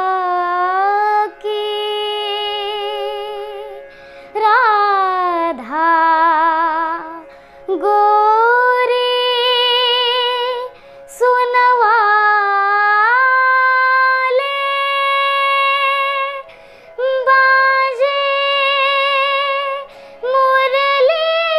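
A young girl singing a Hindi devotional song solo, drawing out long held notes with vibrato and sliding ornaments, in phrases broken by short pauses for breath.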